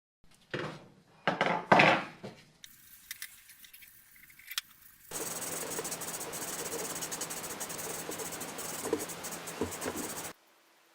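A few short, loud scraping noises, then a steady, even hiss that cuts off abruptly near the end.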